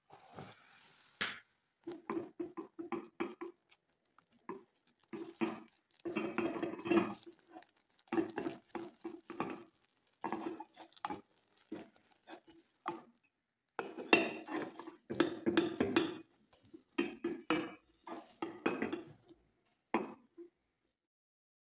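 Silicone spatula stirring and scraping churro dough around a stainless steel pot, in irregular bursts of knocking and scraping as the flour is worked into the liquid, with a sharp knock about a second in.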